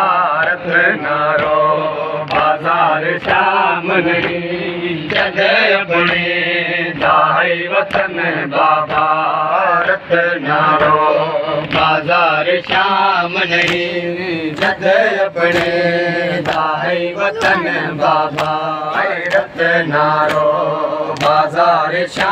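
A male voice chants a noha, a Shia lament, through a hand microphone. Regular thuds run under it in time with the chant, typical of mourners beating their chests (matam).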